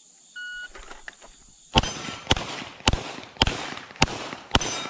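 A shot timer gives one short beep, then a Gen 5 Glock 34 9mm pistol fires six shots about half a second apart. The first shot comes about a second and a half after the beep, and each shot has a short echoing tail.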